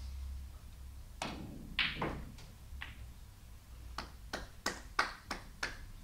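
Snooker shot: the cue tip strikes the cue ball, the cue ball knocks into the balls with a sharp click and a few fainter clicks follow, and then comes a run of six sharp clicks about three a second.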